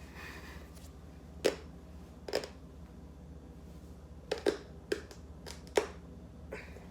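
Dry spaghetti noodles held in the mouth snapping: a series of sharp cracks at irregular intervals, made to imitate the sound of a neck cracking.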